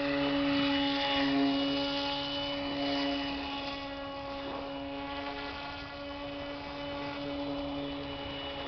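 Hand-made RC airboat's motor and air propeller running at a steady pitch, growing gradually fainter as the boat moves away across the water.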